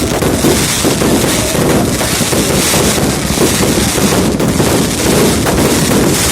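A dense barrage of New Year fireworks and firecrackers going off together as one loud, unbroken crackle and rumble.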